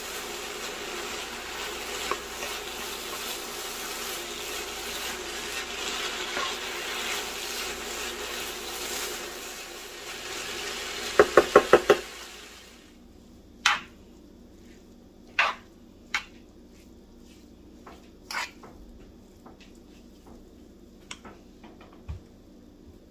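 Ground chicken and chopped vegetables sizzling in a frying pan as they are stirred with a wooden spatula, with five quick loud knocks about eleven seconds in. Then the sizzle stops and a few separate sharp clicks follow.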